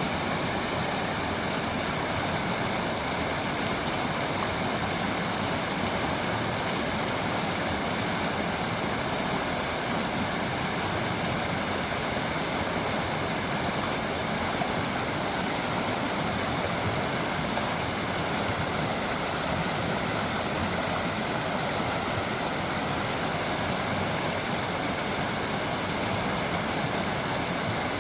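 Creek water flowing and babbling over stones in a steady, unbroken rush.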